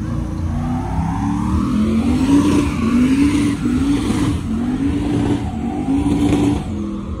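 Pickup truck engine revved hard again and again during a burnout, its pitch climbing and dropping about six times in a row.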